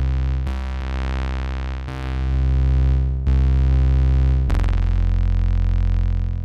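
Synth patch in the Kontakt eDNA engine: a saw-wave layer distorted by a drive effect, playing sustained deep notes. A new note or chord comes in four times, about every second and a half, and the last one sounds buzzier.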